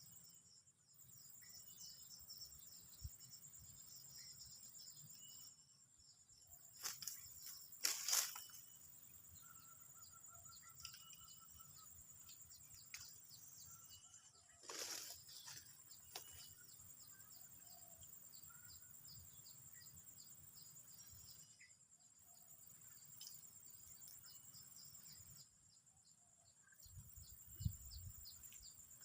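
Steady high-pitched insect chorus with scattered small bird chirps. Two louder sharp crackling noises come about seven to eight seconds in and again around fifteen seconds.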